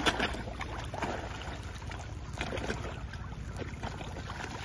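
Water splashing and churning as a mass of feeding fish thrash at the pond's surface, with a sharp splash at the very start and smaller irregular splashes after it.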